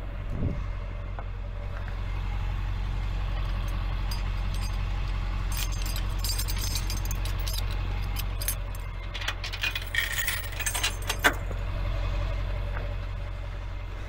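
Tow truck's engine idling steadily while the wheel-lift's metal safety chains rattle and clink as they are unhooked, in two spells about six and ten seconds in.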